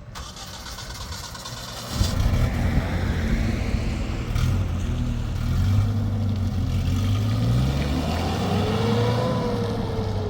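An engine running and revving, its low drone starting about two seconds in and wavering in pitch, over a rushing noise.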